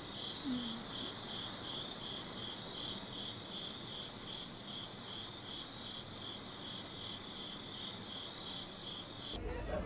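Night-time crickets chirping in a steady, even rhythm, about two and a half high chirps a second, cutting off suddenly near the end.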